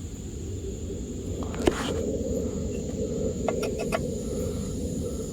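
A few light clicks and taps, once about two seconds in and in a quick cluster near four seconds, typical of small engine parts or tools being handled. Under them runs a steady low background noise and a thin, steady high-pitched whine.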